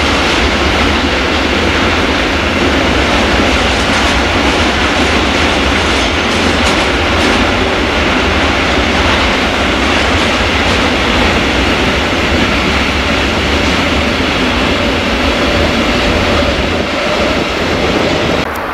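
Freight train of hopper wagons rolling past at steady speed: a loud, even noise of steel wheels running on the rails.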